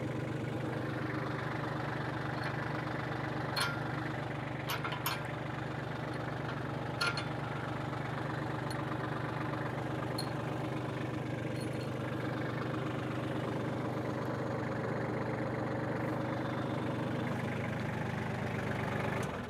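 Compact tractor engine idling steadily, with a few short sharp clicks about four to seven seconds in.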